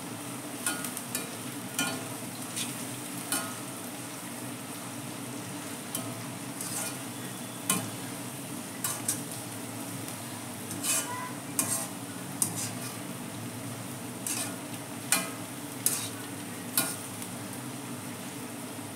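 Sliced onions frying in hot oil in a kadai, a steady sizzle, while a wire-mesh strainer ladle stirs them and scrapes and clicks against the pan at irregular moments.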